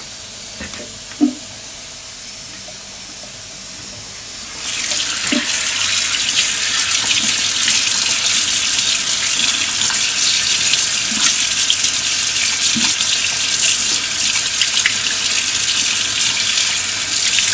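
A kitchen tap comes on about four and a half seconds in, and water runs steadily into the sink, splashing over hands that rinse a computer mouse's circuit board clean of spray cleaner. Before that there are a few quiet handling sounds, with one sharp knock about a second in.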